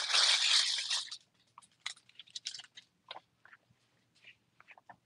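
Trading cards and pack wrappers handled on the table: a loud crinkling rustle for about the first second, then scattered light clicks and taps.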